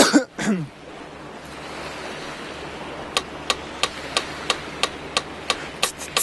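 A short vocal sound falling in pitch, then a steady hiss. From about three seconds in, the looper app's metronome clicks evenly, about three times a second, counting in before a loop is recorded.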